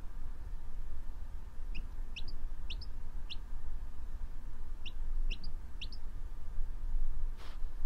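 Baby chick peeping: short, high, upward-sliding peeps in two quick runs of about four, over a steady low rumble.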